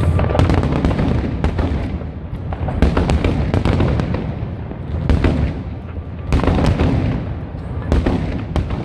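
Fireworks display going off in rapid, overlapping bangs and crackles over a constant low rumble, with louder volleys about three, five and six and a half seconds in.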